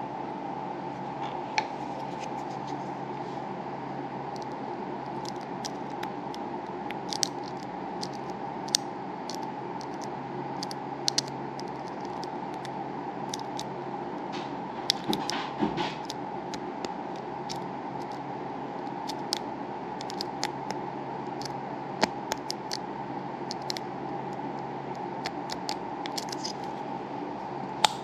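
Small, irregular metal clicks and scratches of a lock pick and tension wrench working the pins in the Falcon SFIC core of an American Lock Series 3560 padlock, with a short cluster of scraping about halfway through and a sharp click near the end. A steady hum runs underneath.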